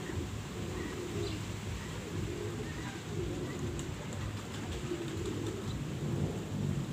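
Ducks giving low, soft calls, repeated about once a second.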